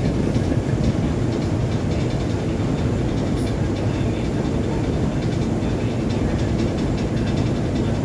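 Steady low rumble of a ship under way: engine drone with the wash of sea water, unchanging throughout.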